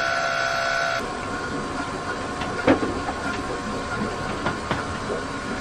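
KTI Systems FPM160 fuel polishing module running, its pump drawing diesel through the filter bowl: a steady mechanical noise with a few light knocks. A steady tone cuts off abruptly about a second in.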